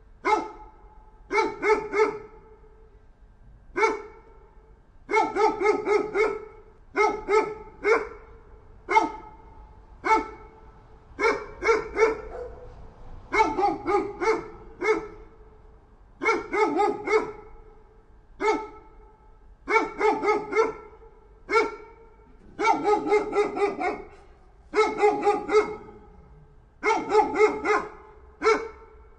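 A dog barking over and over, in quick runs of two to seven barks with short pauses between the runs.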